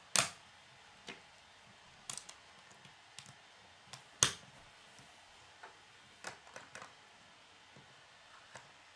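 K'nex plastic connectors and rods clicking as they are snapped together by hand: scattered sharp clicks, with two louder snaps just after the start and about four seconds in, and a quick run of small clicks about two-thirds through.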